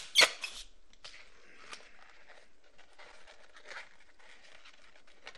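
A latex 260 twisting balloon pops sharply just after the start as the excess length is broken off, with a couple of quick snaps right after it. Then come quiet squeaks and rubbing as the balloons are handled.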